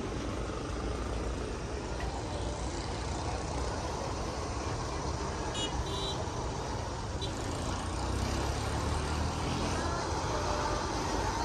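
Steady low rumble of road traffic, with a few short high beeps about six seconds in.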